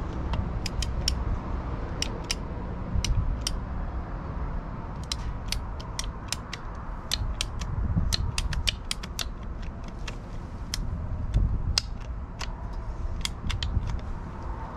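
Irregular sharp clicks and creaks from hand work on a buried water service line at the meter, with a low rumble underneath.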